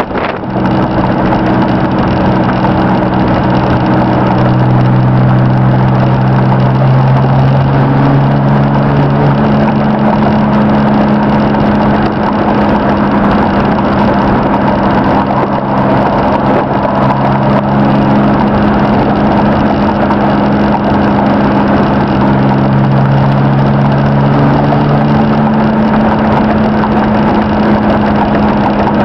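A 1992 Chevrolet S-10 pickup's 2.8-litre V6 engine pulling steadily at road speed, heard from inside the cab along with road noise. Its note rises and falls a little with the throttle.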